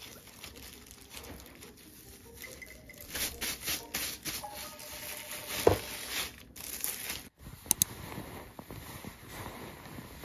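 Hands in thin plastic gloves shredding crispy fried chicken: crinkling of the gloves and crackling, tearing of the crust and meat, with a louder knock a little past the middle and a couple of sharp clicks later.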